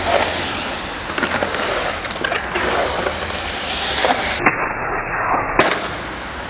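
Skateboard wheels rolling over smooth concrete: a steady rolling hiss.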